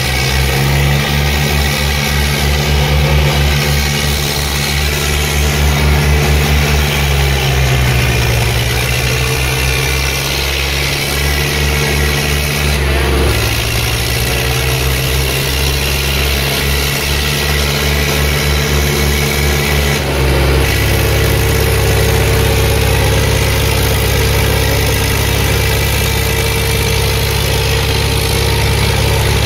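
Tractor diesel engines running hard under load as an Eicher 557 and a Swaraj 855 pull against each other in a tug-of-war. The engine note shifts about halfway through and again later, settling into a steadier drone.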